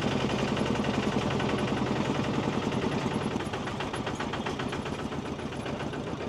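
A farm tractor's diesel engine runs steadily with a fast, even chugging pulse, heard from the passenger cart it is pulling up a gravel road. It gets a little quieter about three and a half seconds in.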